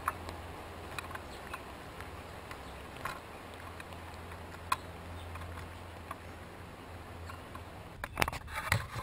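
Chipmunks shucking corn: sparse small clicks and cracks of kernels and husk, then a quick flurry of rustling and cracking near the end.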